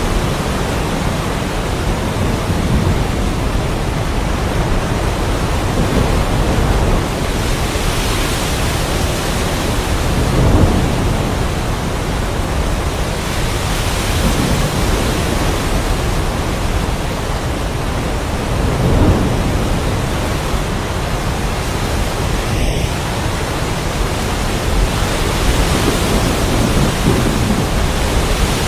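Heavy rain falling in a steady dense hiss, with low rumbles of thunder swelling through it, the two strongest about ten and nineteen seconds in.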